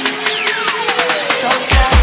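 Electronic music with fast hi-hat ticks and a synth sweep falling steeply in pitch over the first second and a half. Deep bass hits come in near the end.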